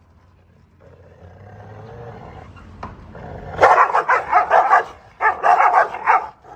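A dog growling low and rising, then breaking into fast, aggressive barking in two rapid runs of barks, about four or five a second.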